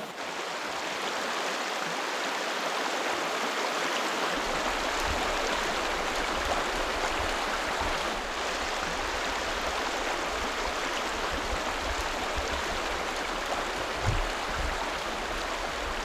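Shallow mountain stream running over rocks: a steady rush of water. A low rumble joins about four seconds in.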